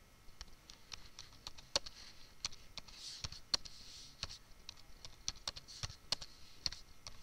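Typing on a computer keyboard: irregular keystrokes, several a second, with short pauses.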